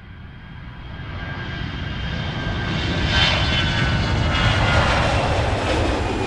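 Jet engines of a Boeing 787-8 Dreamliner running at high power: a dense rush of noise with thin whining tones on top. It swells up over the first three seconds and stays loud.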